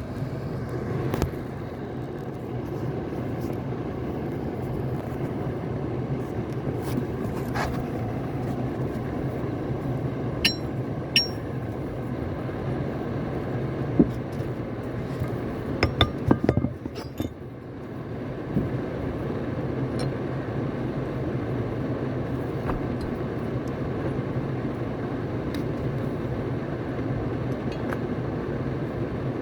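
Scattered metal clinks and scrapes of hand tools on the parts of a Lofrans Albatross anchor windlass as its upper unit is dismantled, a few of them ringing briefly, over a steady low hum.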